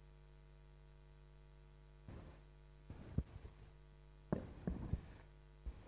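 Steady low electrical hum on the hall's sound system, with a few short clicks and knocks between about two and five seconds in as the laptop at the lectern is operated.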